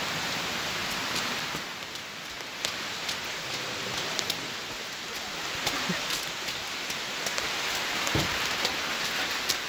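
Heavy rain falling steadily on leaves, with scattered sharp taps of drops landing close by.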